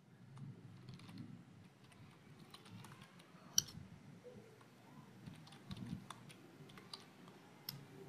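Faint computer keyboard typing: scattered single key clicks at an unhurried pace, one sharper click about three and a half seconds in.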